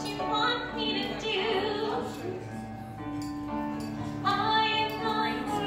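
A woman singing solo through a microphone, holding long notes, with a soft accompaniment of sustained low notes beneath.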